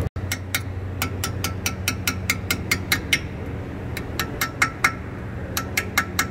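Hammer and punch tapping a steel pad retaining pin through a Mercedes-AMG four-piston front brake caliper: quick light metallic taps with a ringing note, about four a second, in two runs with a pause of about a second midway, driving the pin home.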